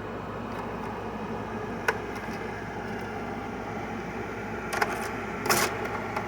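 Midea 5,000 BTU window air conditioner running steadily. A sharp click comes about two seconds in, and a few short clattering knocks come near the end.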